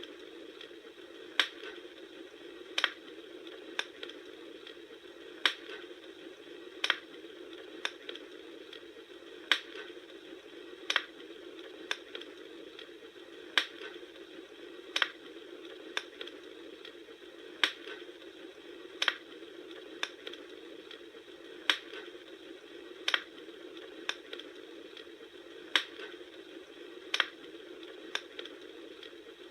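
Wood fire crackling: sharp pops about every second and a half, some fainter ones between, over a steady rushing noise.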